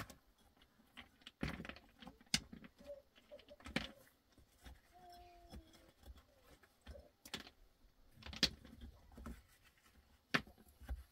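Irregular sharp knocks, clicks and scrapes of hand work on a concrete-block and wet-cement pit, about a dozen separate strokes. A short faint tone about five seconds in.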